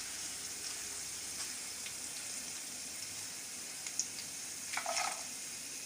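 Cornflour-coated sweet corn kernels deep-frying in hot oil, a steady sizzle, with a few light clicks along the way.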